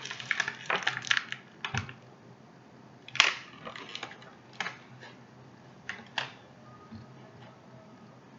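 Crinkling and crackling of a plastic wrapper being handled, then a few single sharp plastic clicks and taps spaced a second or more apart as small plastic figures are handled.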